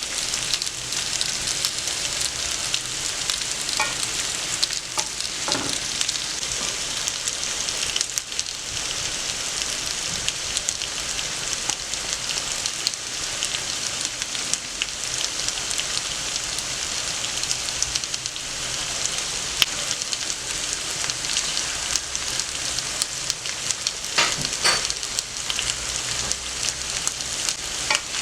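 Potatoes frying in hot oil in a pan: a steady sizzle full of fine crackles, with a few brief scrapes or knocks, the loudest near the end.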